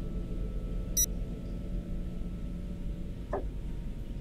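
A steady low electronic drone, with one short, high synthetic interface beep about a second in and a brief soft sound a little past three seconds.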